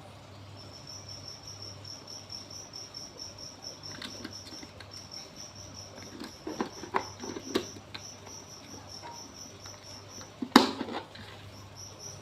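A cricket chirping steadily in a rapid run of short, high-pitched pulses, about four a second. Several light knocks and rustles of handling are mixed in, with one loud sharp knock about ten and a half seconds in.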